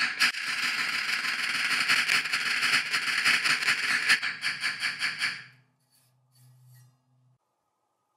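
Small ball-peen hammer tapping quickly and evenly on a rivet in a metal disc, peening the rivet head over to set it. The taps stop about five and a half seconds in.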